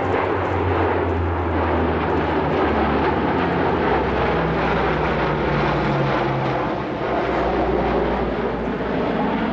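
Lockheed C-130 Hercules's four turboprop engines and propellers droning steadily as the transport flies a banking display pass overhead. The low propeller tone drops in pitch about two and a half seconds in.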